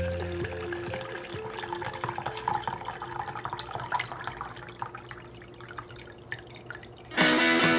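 Liquid dripping and trickling with many small irregular ticks. Music fades out at the start and comes back in near the end.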